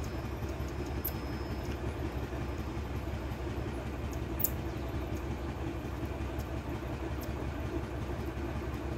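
Steady low mechanical rumble with a few brief, very high-pitched chirps.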